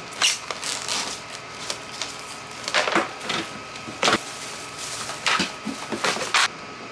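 Irregular light clicks and knocks, as of small hard objects being handled or tapped, with a few sharper knocks about three and four seconds in.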